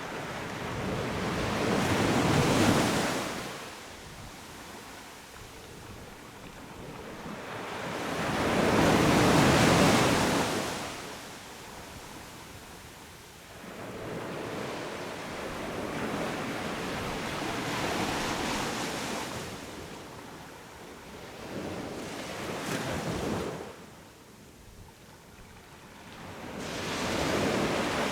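Sea waves breaking and washing up the beach, the surf swelling and fading every several seconds, loudest about two to three and nine to ten seconds in, with quieter wash between.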